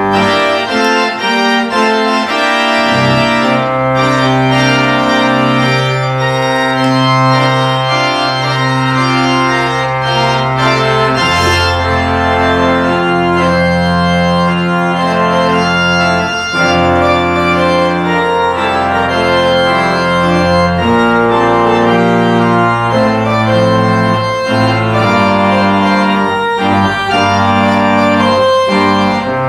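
Organ playing the postlude: loud sustained chords over deep bass notes, each held for several seconds before the harmony moves on.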